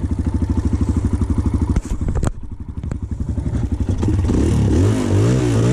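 Kawasaki KLX140's single-cylinder four-stroke engine idling steadily just after an electric start, with two sharp knocks about two seconds in. From about four seconds in the throttle is blipped, the revs rising and falling several times.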